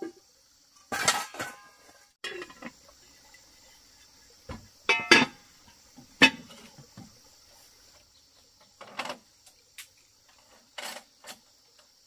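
Dishes and utensils clinking and knocking in irregular single strikes, some with a short ringing tone, the loudest about five and six seconds in. A steady high insect hum runs behind them.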